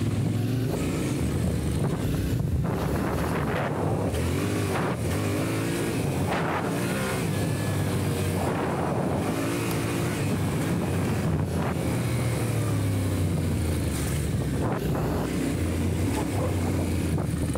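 Adventure motorcycle engine running under way on a dirt track, its pitch rising and falling again and again as the throttle is worked and gears change. Wind noise on the on-board microphone runs throughout.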